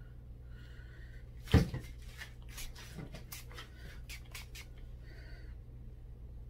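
Plastic pouring cups handled on a tabletop: a sharp knock about a second and a half in, then a quick run of light clicks and taps for about three seconds.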